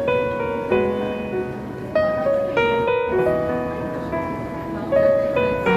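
Background piano music: a slow melody of single notes and soft chords, each struck and left to ring.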